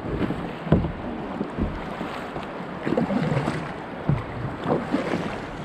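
Double-bladed kayak paddle strokes splashing in the water, irregularly every half second to a second, over water rushing past the hull and wind on the microphone.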